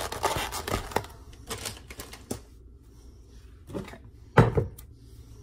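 Clicks and light knocks of food and a plastic container being handled on a kitchen counter, with one sharp knock about four seconds in.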